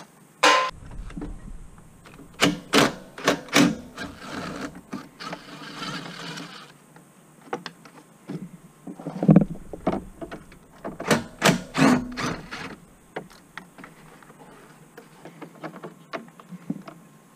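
A cordless drill-driver whirs briefly about half a second in, then come repeated sharp knocks and clunks of hard plastic and metal, with a spell of rustling, as the gas tank of a Honda Rancher 350 ATV is unbolted and worked loose from the frame.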